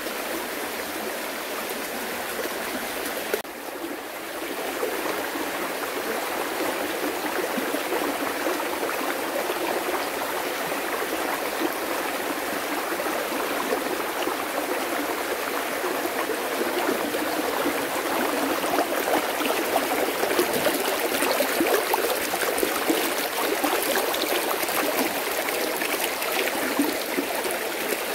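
Water running steadily, as in a stream or a flow over a small fall. There is a brief break about three and a half seconds in, after which the flow is slightly louder.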